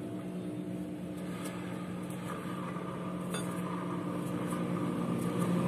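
Honda Vario 150's rear wheel and CVT driven pulley turning, a steady low whirring hum. It is the sign of worn pulley bearings, the 6902 pulley bearing and its needle bearing, which the mechanic is sure of.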